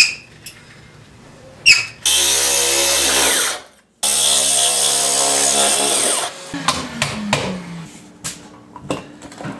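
A water-fed handheld core drill with a diamond core bit running at steady speed as it bores into a granite countertop, in two stretches. About two-thirds of the way in, the motor winds down with a falling pitch, followed by a few light knocks.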